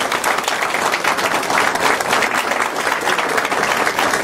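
A crowd applauding: many hands clapping together in a steady, dense patter.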